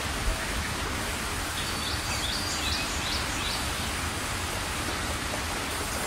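Band sawmill running and cutting through a log: a steady noise over a low hum. A few short bird chirps come about two seconds in.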